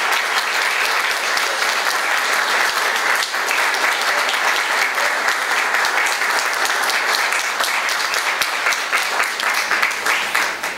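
Audience applauding steadily, a dense clatter of many hands clapping, dying away sharply at the very end.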